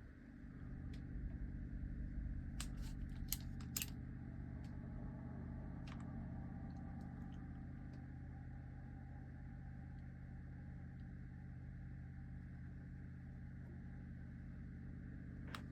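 Steady low machine hum with a few light clicks and taps, bunched between about two and four seconds in, with one more a little later.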